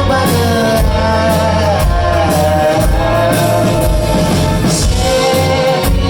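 Live rock band performing, with a held sung melody over bass, drums and guitar, loud and compressed as recorded from within the crowd.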